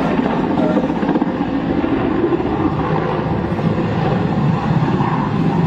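Mi-8-family helicopter flying low past: a loud, steady rush of rotor and turbine noise.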